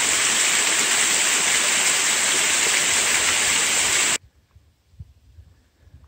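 Small waterfall on a mountain stream, water splashing and rushing in a steady, even hiss. It cuts off abruptly about four seconds in, leaving only a few faint thumps.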